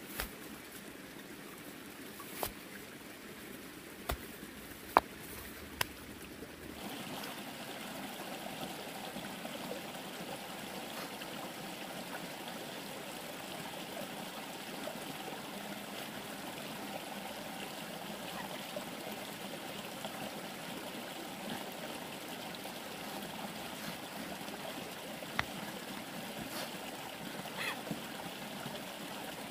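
Steady flowing, trickling water, with a few sharp knocks in the first six seconds; about seven seconds in, the sound changes suddenly to a fuller, denser flow.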